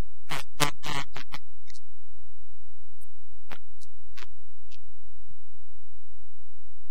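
Steady low rumble of wind and riding noise on a motorcycle-mounted camera's microphone, with a quick cluster of sharp clicks about half a second in and a few single clicks later.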